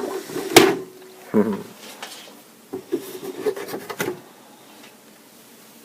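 Hard objects being handled: two sharp knocks near the start, then a run of lighter clicks and rattles in the middle that stop about four seconds in.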